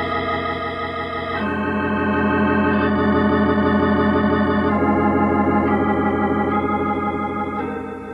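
Organ music bridge: a run of sustained organ chords, each held about a second or so before moving to the next over a steady bass note, swelling and then fading away near the end, marking a scene change in the radio drama.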